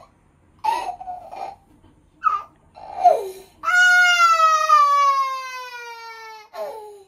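Toddler crying: several short sobs, then one long wail starting about halfway through that slowly falls in pitch, and a brief cry near the end.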